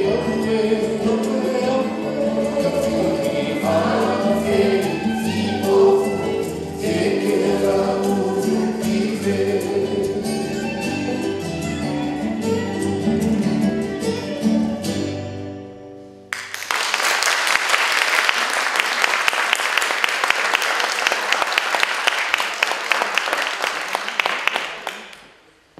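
A song with singing and instrumental backing fades out about two-thirds of the way through. Then an audience claps steadily for about eight seconds before the clapping dies away near the end.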